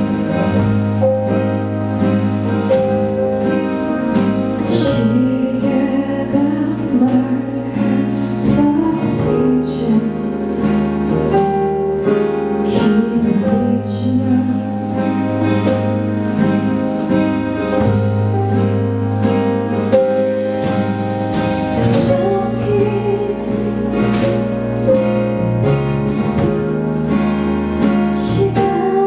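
Live band performance of an indie pop song: a woman singing over the band, with sustained bass notes and regular cymbal strokes.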